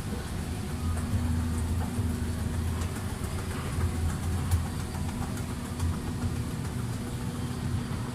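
Toshiba TA-series escalator running, a steady low mechanical hum with faint scattered clicks.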